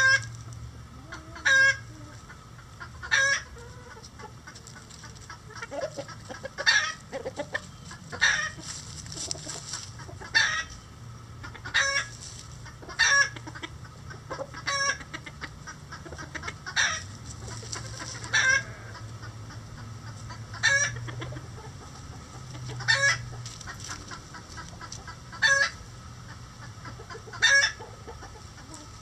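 Bantam chickens clucking: short, loud, pitched calls repeated every second or two, over a steady low hum.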